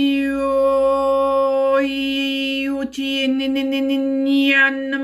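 A woman's voice toning one long held note on a steady pitch as a meditation chant, the vowel sound shifting a couple of times, with a brief break about three seconds in.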